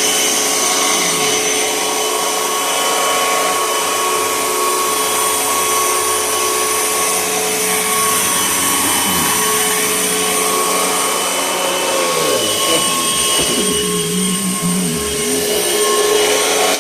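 2004 Panasonic upright vacuum cleaner running steadily: a continuous motor hum with a rush of air and a few steady high tones. The pitch wavers briefly about twelve seconds in.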